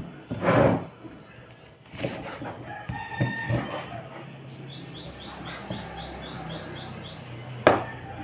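Knife chopping through crispy deep-fried pork leg on a wooden chopping board: crunching of the crackling skin and knocks of the blade on the board, several separate chops, the loudest a little after the start and near the end.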